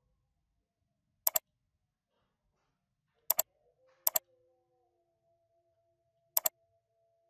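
Computer mouse clicks, four times, each a quick double tick of the button pressing and releasing.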